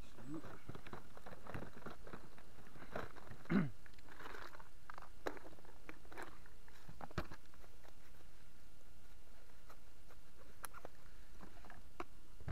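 Handling noises of fishing gear on a plastic kayak: rustling and scattered small plastic clicks and knocks as the crate's cargo net is worked and a clear plastic tackle box is picked up. One louder knock comes about three and a half seconds in.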